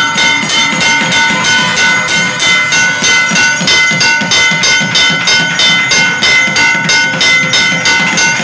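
Rhythmic ringing metal percussion at a temple festival, struck evenly about three times a second. Several steady ringing tones hang on between the strokes, and a low pulsing beat runs underneath.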